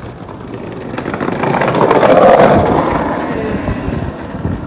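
Skateboard wheels rolling hard on a ramp after a drop-in, the rolling noise building to its loudest about two seconds in and then easing off.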